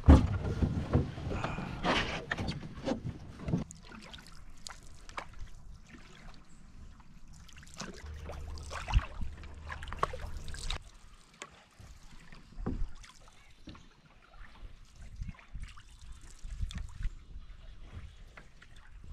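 Canoe paddling on calm water: wooden paddles dipping and pulling, with splashes, drips and irregular knocks, busiest in the first few seconds.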